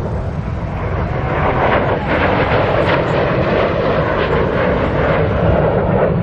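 Jet noise from Air Force Thunderbirds F-16 fighters flying past. It grows about a second in and then holds steady.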